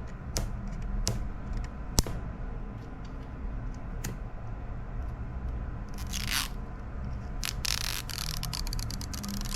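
Small accessory packaging being opened by hand: a few sharp clicks and taps, then crinkling and tearing of the wrapping, with a short rustle about six seconds in and a longer crackling tear near the end.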